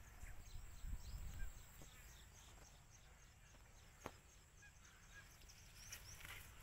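Faint outdoor ambience near silence: light wind rumble for the first second and a half, then many faint high chirps with a steady thin high whine behind them, and a single sharp click about four seconds in.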